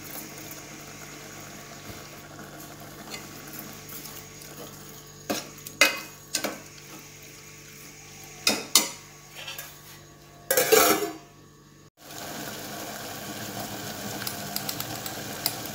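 Spatula scraping and knocking against a stainless steel pot while prawns are stirred as they fry in oil, over a steady sizzle. A few sharp knocks come in the middle, then a loud bout of scraping just before the sound briefly drops out. After that the sizzling resumes with light crackles.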